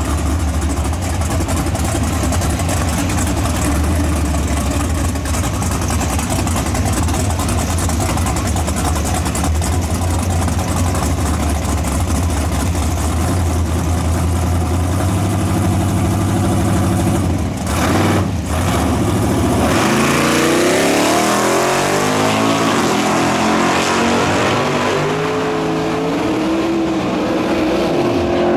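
Drag cars' engines idling at the starting line with a deep, steady rumble. After a break about two-thirds in, engines accelerate hard down the strip, the pitch climbing and dropping back with each gear change.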